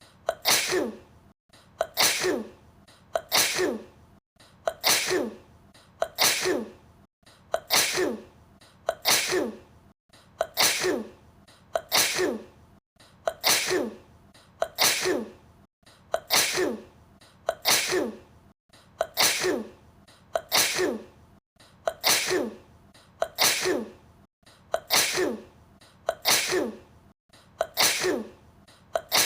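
A woman's sneeze, heard over a FaceTime video call, repeated over and over as a loop about every three seconds, each repeat falling in pitch.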